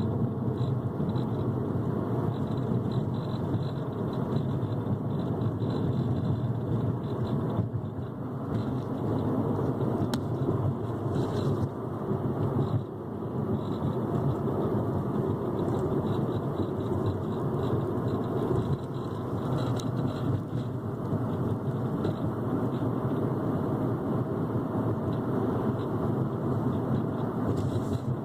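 A 2015 Ford Focus Titanium hatchback being driven, heard from inside the cabin: steady road and running noise with a fast, faint rattle on top. The rattle is an intermittent, worsening fault in a car only six weeks old, and the owner cannot pinpoint where it comes from.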